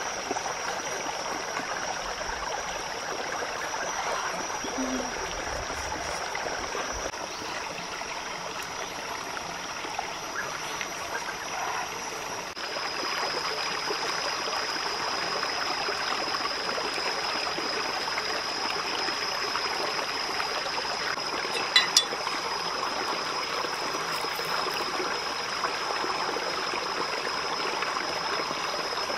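Steady rushing and trickling of a forest stream, with a steady high-pitched tone running over it. Two sharp clicks about three-quarters of the way through.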